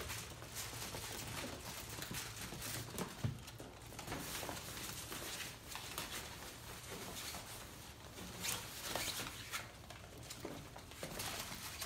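Labradoodle puppies at play: small paws pattering and scrabbling on a hard floor and plastic toys, with scattered light knocks and scuffles.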